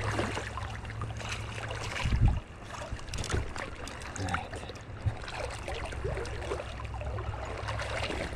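Shallow creek water running and splashing around the wader and landing net, with scattered small clicks and a dull low thump about two seconds in.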